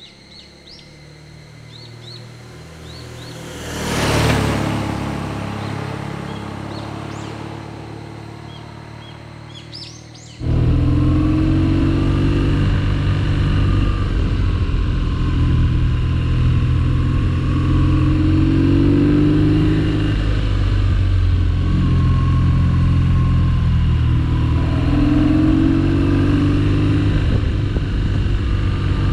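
BMW 1200 cc boxer-twin motorcycle riding past through a bend, loudest about four seconds in and then fading, with birds chirping. After about ten seconds, heard from the saddle, the flat-twin engine runs loud and steady at road speed, its pitch rising three times as it pulls.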